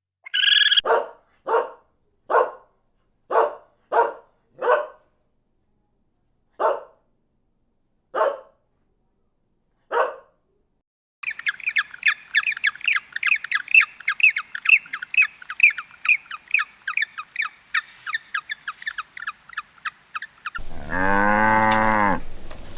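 A dog barking in single short barks spaced a second or more apart. Then small birds chirping rapidly and high, several chirps a second, and near the end a cow begins a long moo.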